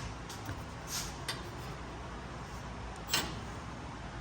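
A few faint, short metallic clicks and knocks of hand tools being handled, over a low steady shop background.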